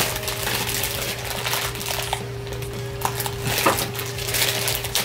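Clear plastic wrapping crinkling and rustling as it is pulled open and handled, over soft background music.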